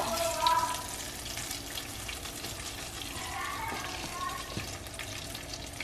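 Hot oil sizzling steadily in a frying pan, with a few light scrapes and clicks of a spatula.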